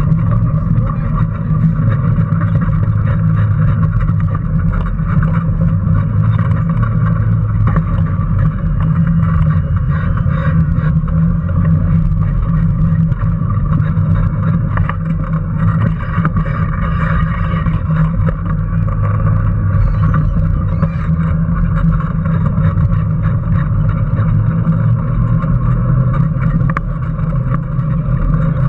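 Onboard sound of a small electric Power Racing Series kart driving at speed: a steady motor and drivetrain drone with constant rattling and clattering from the chassis as it runs over the track.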